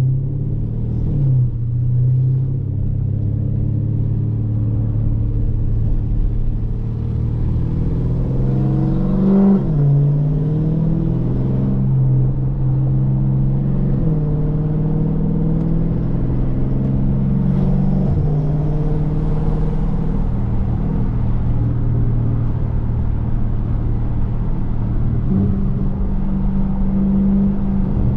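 Dodge Challenger Scat Pack's 6.4-litre (392) HEMI V8 driving under way, its exhaust note climbing as it pulls and dropping abruptly at an upshift about ten seconds in and again a few seconds later, then holding a steady pitch.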